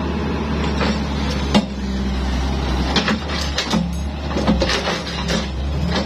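Hyundai hydraulic excavator's diesel engine running steadily, with several sharp knocks and clatters over it, the loudest about a second and a half in.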